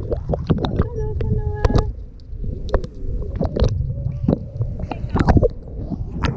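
Water sloshing and splashing around a GoPro camera held at the surface, with many small knocks and a low rumble. About a second in comes a short, steady squeak lasting under a second.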